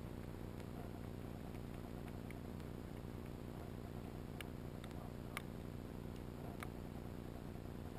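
Underwater recording from a submerged camera in its housing: a faint, steady low rumble with a few scattered sharp clicks, most of them in the second half.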